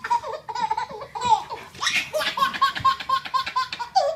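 Baby laughing in quick runs of short, repeated high-pitched giggles.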